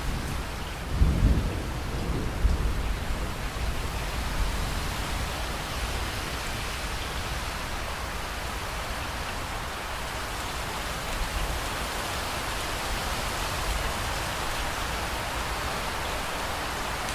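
Steady rain with a clap of thunder about a second in that rumbles low and dies away over the next couple of seconds.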